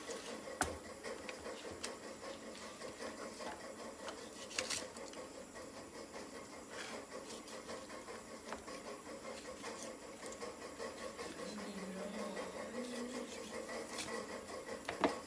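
Large kitchen knife cutting up a raw dressed chicken on a plastic cutting board, with a few sharp knocks of the blade against the board over a faint steady hum.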